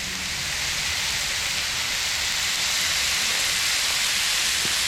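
Steady sizzling on a Blackstone flat-top griddle, a dense hiss that swells slightly in the first second and then holds even.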